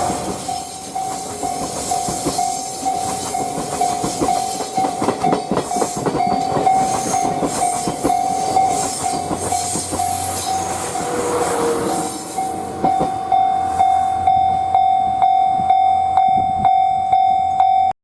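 12-series passenger coaches clattering over rail joints as they pass, while a railway level-crossing alarm rings in rapid repeated tones. After about twelve seconds the clatter dies away and the crossing alarm rings on alone, about one and a half beats a second, until the sound cuts off at the very end.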